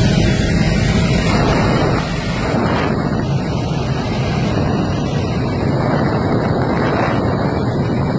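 Helicopter in flight heard from inside the cabin: a steady, loud rush of engine and rotor noise mixed with wind on the microphone. The sound shifts and eases slightly about two seconds in.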